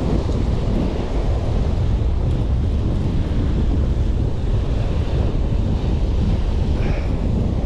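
Strong wind on the microphone, a steady heavy rumble, over breaking ocean surf.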